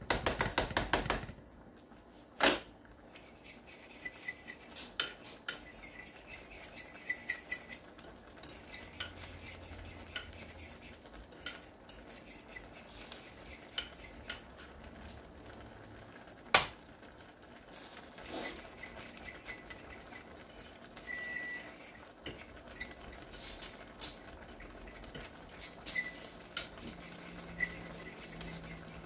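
Cooking utensil clinking and knocking against a wok while stirring chow mein: a rattling clatter at the start, then scattered light clicks with a couple of sharper knocks.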